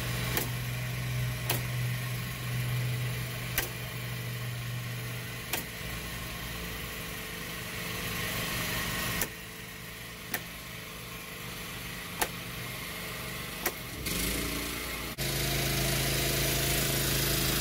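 Rocker switches on a Reliance Controls Pro/Tran generator transfer switch snapping over one after another from LINE to GEN, several sharp clicks a second or two apart. Under them a portable inverter generator runs steadily.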